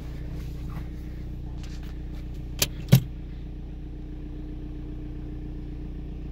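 VW ALH 1.9-litre four-cylinder turbodiesel idling steadily, heard from inside the cabin. A sharp click about two and a half seconds in is followed by a louder click with a thump just after.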